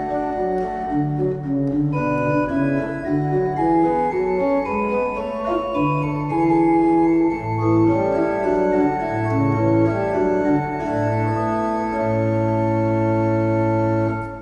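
Church pipe organ playing the closing voluntary after the service: sustained chords over a moving bass line, settling onto a long held final chord near the end.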